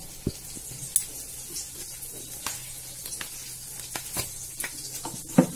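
Hot oil sizzling in a kadai with tempering spices in it, a steady hiss with scattered sharp clicks. A louder utensil knock comes near the end.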